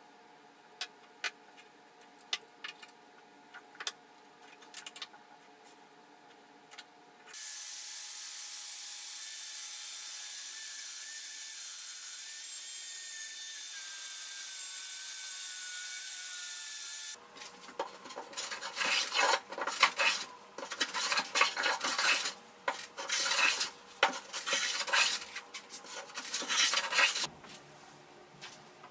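A few light ticks and scratches of pencil and metal squares on wood. Then a steady whirring hiss for about ten seconds from a compact circular saw with its dust-extraction hose. Then a run of rasping hand-saw strokes that stops shortly before the end.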